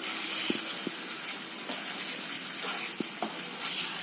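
Thick korma masala sizzling in a nonstick pan as it is stirred and turned with a spatula, with a few light knocks of the spatula against the pan.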